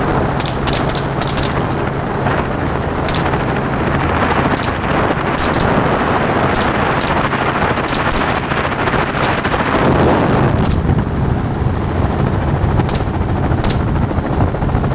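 Helicopter running steadily, heard from inside the open-door cabin, with a string of sharp gunshots at irregular intervals, several in quick succession in the first second and a half, as a shooter fires out the door.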